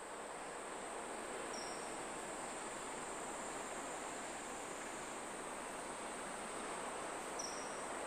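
Steady outdoor ambience: an even rushing noise with a thin, steady high insect buzz over it. Two very short high chirps come through, about a second and a half in and again near the end.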